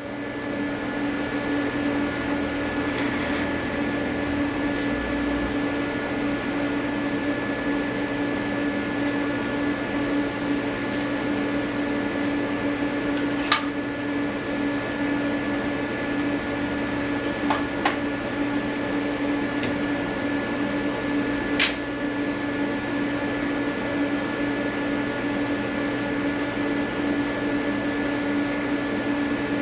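AC TIG welding arc from an Everlast 325EXT on advanced square wave, buzzing steadily. A few sharp clicks stand out near the middle.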